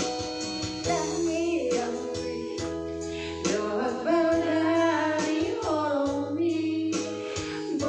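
A woman singing into a handheld microphone over recorded backing music, her voice coming in about a second in.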